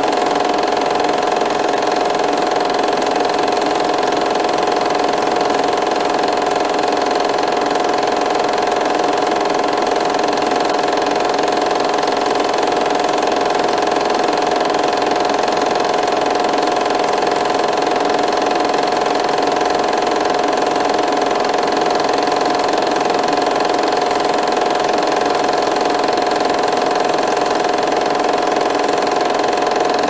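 8mm film projector running steadily: a constant mechanical whir with a steady hum, unchanging throughout.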